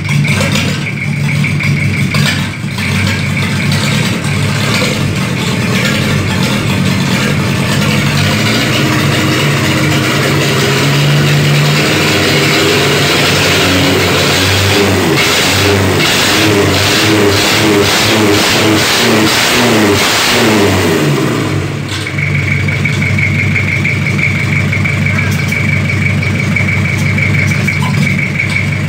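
Toyota 1C four-cylinder diesel engine running on a stand with its intake ports open. Its revs climb and fall in the middle of the stretch, then it settles back into a steady idle about three-quarters of the way through.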